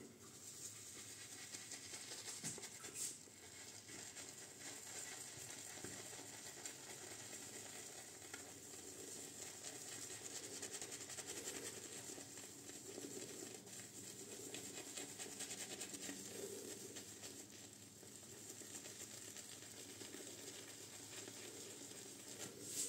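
Omega Roma Colosseo shaving brush swirled and scrubbed on a tub of Goodfellas Solo shaving soap: a faint, scratchy hiss of bristles loading soap and building lather.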